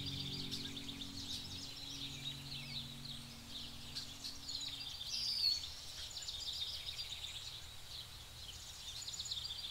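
Small birds chirping and twittering in a busy, steady chorus, with one louder whistled call about five seconds in. Soft background music fades out in the first half.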